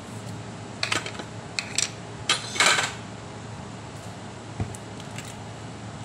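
Yellow plastic screw lid being twisted off a jar of peanut butter and handled: a few sharp clicks and scraping rattles in the first three seconds, then a soft thump a little after four seconds. A window air conditioner hums steadily underneath.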